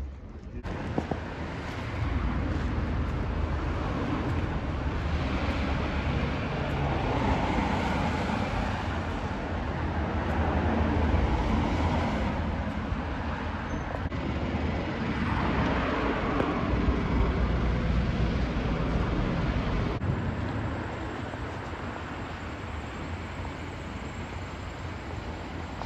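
Street traffic: cars passing on a wet road, a steady noisy rumble that swells for much of the time and eases off near the end.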